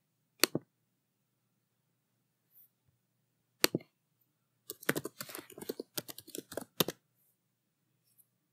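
Clicks from a computer being used: a quick double click, a single click about three seconds later, then a fast run of about a dozen keystrokes on a computer keyboard as a web address is typed.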